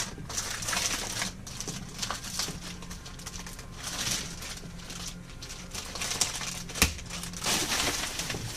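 Crinkling and rustling of something being handled, with scattered small clicks and knocks, over a steady low hum.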